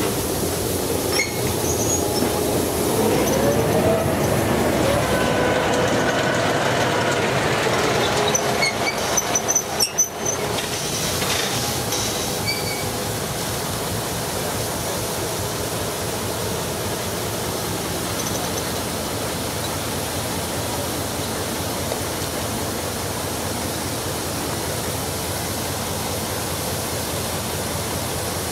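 Railway sounds: squealing and creaking with gliding tones for about ten seconds, then, after an abrupt break, a steady rushing noise.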